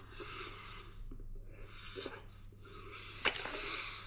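A person chewing a mouthful of rolled-up fruit candy with soft mouth noises, breathing audibly in several short, breathy bursts. There is a sharp click about three seconds in.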